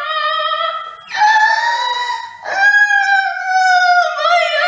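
A child wailing in long, drawn-out, high-pitched howls, breaking off briefly about a second in and again about two and a half seconds in, and turning wavering and sobbing near the end.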